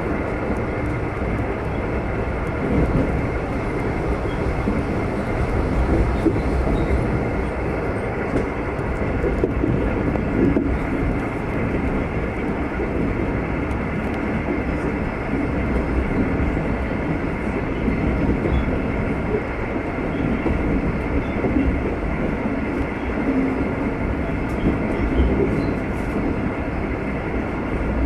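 Loco-hauled V/Line passenger train under way: steady running noise of wheels on rails with a continuous low rumble and a faint steady whine.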